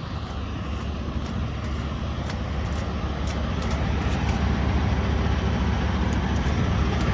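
Semi truck's diesel engine pulling slowly, growing gradually louder, with light metallic clicking from the chains on its tires a few times a second.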